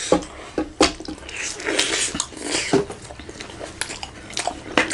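Close-miked eating sounds from a plate of chicken curry and rice: chewing and wet lip smacks, with irregular sharp clicks.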